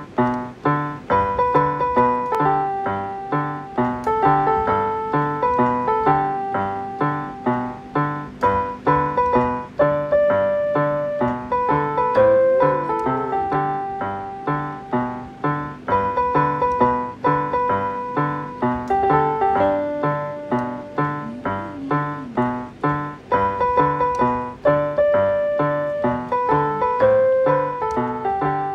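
Background music: a light piano tune, a simple melody over a steady rhythm of repeated bass notes.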